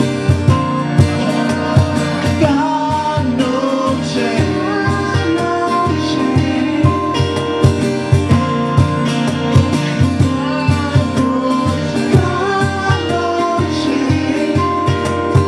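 Live band music: drums keeping a steady beat under guitar chords, with a bending melody line over the top.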